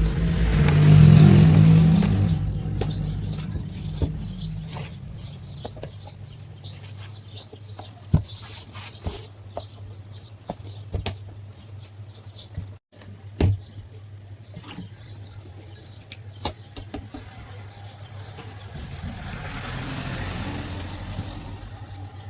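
Bajaj electric wall fan running with a steady low motor hum. A rush of air swells loud about a second in and again near the end, with scattered small clicks in between.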